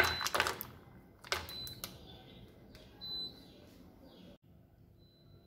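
Kitchen clatter: a loud knock at the start, then a few shorter clatters and rattles over the next three seconds, as a juicer and fruit are handled.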